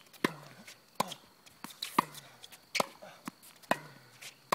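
Tennis ball struck back and forth with rackets in a quick volley exchange: about five sharp hits, roughly one a second.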